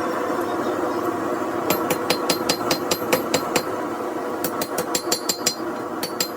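Hand hammer blows forging a steel knife billet on an anvil, struck in quick runs of about four to five ringing blows a second with a short pause in the middle. A steady roar runs underneath.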